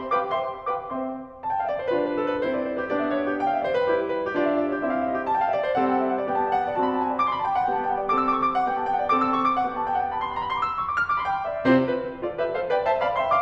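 Background piano music: a steady run of melodic notes, pausing briefly about a second in and starting a new phrase near the end.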